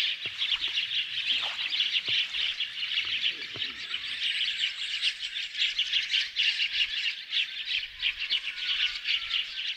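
A chorus of many small birds chirping and twittering, a continuous dense stream of short, high notes.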